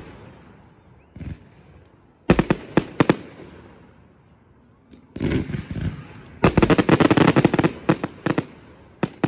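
Aerial fireworks going off in clusters of sharp bangs and crackles. A short run comes a couple of seconds in and another around the middle; the longest, densest run comes in the last third, with a few more cracks at the very end.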